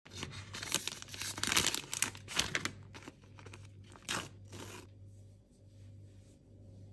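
Foil coffee sachet crinkling and being torn open, followed about four seconds in by a short rip of the paper drip-coffee filter bag being torn along its tear strip.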